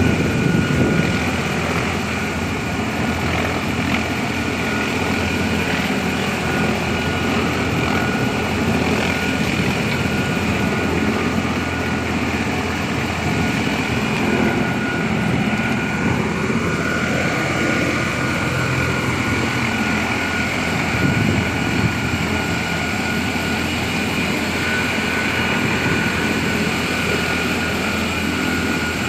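Steady, loud drone of heavy machinery with a constant high whine over a low rumble.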